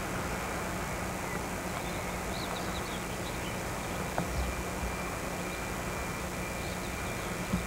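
Outdoor field ambience heard through steady camcorder tape hiss and a low hum, with a few faint bird chirps about two to three seconds in and again near the end.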